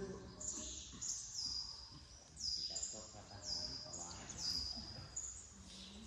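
Small birds chirping, short high-pitched calls that each drop slightly in pitch, repeating about once a second, with faint voices murmuring in the background.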